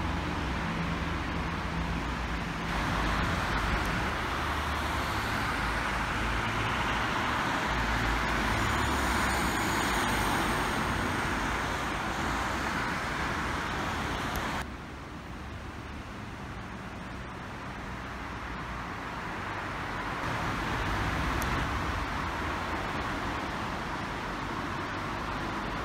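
Road traffic on the street, cars passing over a steady low hum. About halfway through, the traffic noise drops off suddenly, leaving a quieter hum that slowly swells again.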